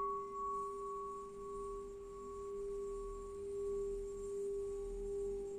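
Tibetan singing bowl ringing with one steady low tone and fainter higher overtones, its loudness slowly swelling and fading.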